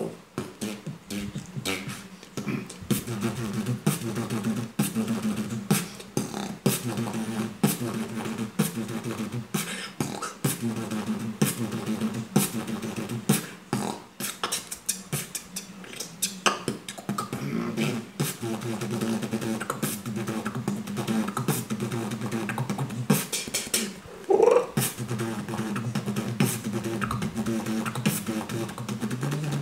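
Solo human beatboxing: fast rhythmic kick, snare and hi-hat clicks made with the mouth over a held hummed bass line. About three-quarters of the way through comes one loud rising vocal sweep.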